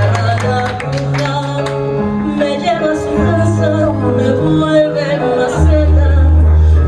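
Music with singing over a bass line that moves to a new held note about once a second.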